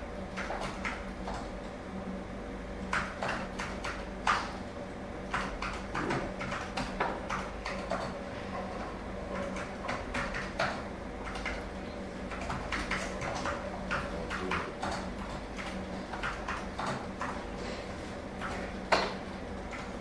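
School interior atmosphere: irregular knocks, taps and clicks over a steady low hum, with no voices standing out. One louder knock comes near the end.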